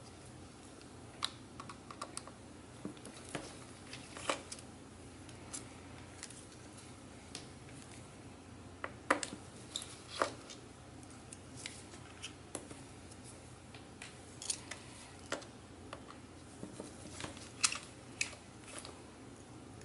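Scattered small clicks and taps of plastic and metal parts being handled as the speaker assembly is worked free from an opened MacBook Pro's aluminium case, irregular and a few seconds apart at most, a little busier around the middle and near the end.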